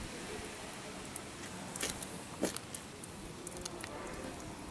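Quiet background with a few soft clicks and knocks of hand and camera handling around a motorcycle whose engine is off: two sharper clicks about two seconds in, then a run of light ticks as a hand touches the bike's side cover.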